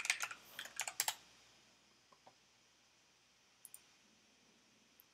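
Typing on a computer keyboard: a quick run of keystrokes in the first second or so, then a few faint isolated clicks.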